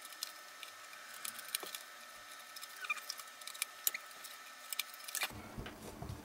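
Scissors snipping across the corners of a paper cover: a run of quick, irregular sharp clicks from the blades, with paper being handled on the mat near the end.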